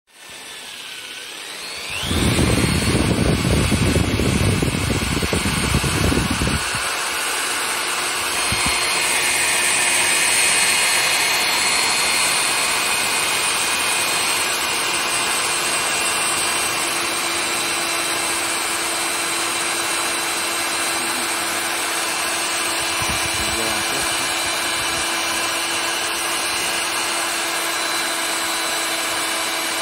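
Electric drill running steadily as its bit bores into a wooden golok handle blank, a steady motor whine with a held tone. A loud low rumble sits under it for a few seconds near the start.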